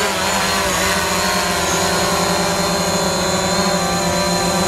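DJI Mavic Pro quadcopter hovering close by: its motors and propellers give a steady, loud buzz of several tones with a high whine above it.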